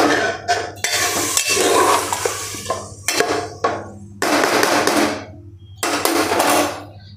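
A metal slotted ladle stirring vegetables and freshly poured water in an aluminium pressure cooker: four or five strokes of sloshing water and metal scraping on the pot.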